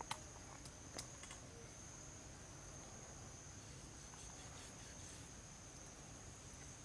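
Faint, steady high-pitched insect drone, with a couple of light clicks in the first second.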